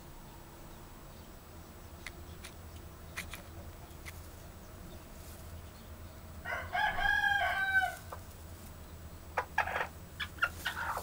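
A chicken gives one drawn-out call of several linked notes, lasting about a second and a half, a little past the middle. Near the end come a few short, sharp sounds.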